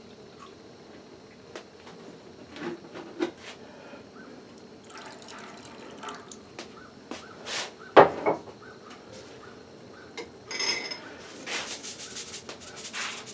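Milk poured from a measuring cup into a saucepan of cooked rice, splashing into the liquid, with light clinks and one sharp knock about eight seconds in.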